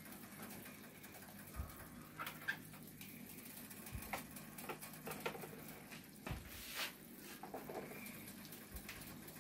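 Faint, scattered clicks and light knocks of plastic and glass spice containers being moved about on a kitchen shelf while someone searches for the salt and pepper.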